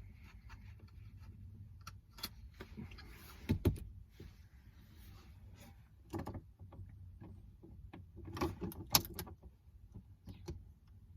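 Small plastic parts of an action camera mount being handled: scattered clicks and knocks with a stretch of rustling, and a quick run of clicks near the end.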